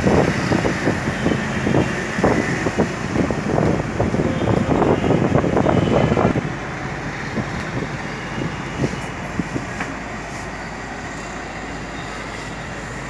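Clear plastic application film rustling and crackling as it is peeled and pulled off vinyl sticker lettering. The crackling is dense and irregular and stops about six seconds in, leaving a steady background rumble.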